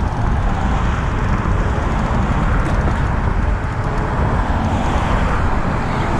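Steady wind rushing over the microphone, heaviest in the low end, mixed with a wash of road traffic noise.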